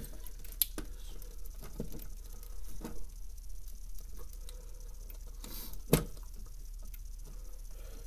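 Scattered light clicks and knocks of a red plastic fire alarm pull station being handled and pressed against its wall-mounted back box, with one sharper knock about six seconds in.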